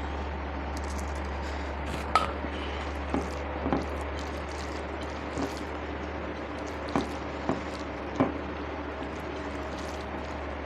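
Close-up eating sounds: wet squishing and chewing of curry and food, with about seven short sharp clicks scattered through, over a steady low hum.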